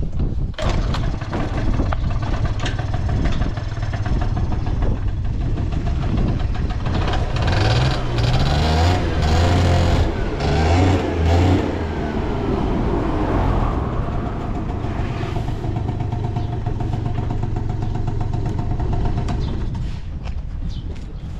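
Honda Super Tact AF09 scooter's small two-stroke engine starting, then idling. In the middle it is revved in a few short throttle blips that rise in pitch, and it drops back to a steady idle. It runs with no abnormal noises.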